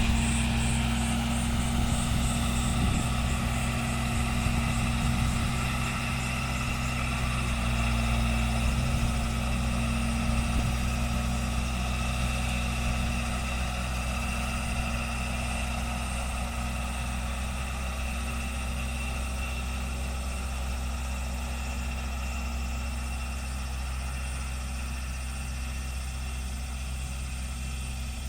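John Deere farm tractor's diesel engine running at a steady pitch, slowly growing fainter.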